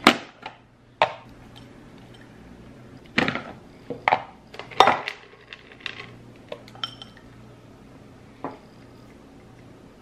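Kitchen clatter as parfait toppings are added: plastic pop-top canister lids clicking open and shut, containers knocking on the counter and small clinks against a glass bowl. It comes as separate sharp clicks, with a dense run of them in the middle.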